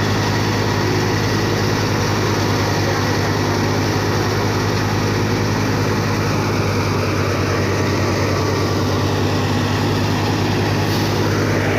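Wheat threshing machine running steadily, a loud constant mechanical drone with no change in speed.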